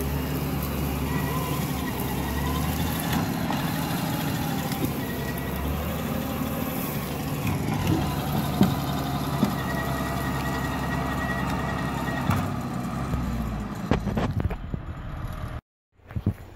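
International TD8G crawler dozer's diesel engine running steadily under load while a log is dragged across the dirt, with a few sharp knocks along the way. The engine sound falls away near the end.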